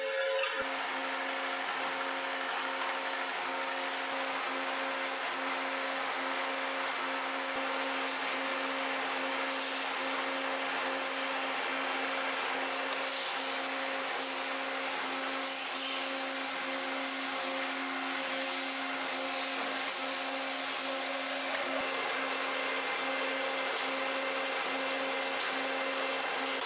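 Manual engine lathe running steadily while a boring bar cuts the bore of a 4140 steel cylinder gland: an even machine hum with a constant low tone under a steady whirr that does not change.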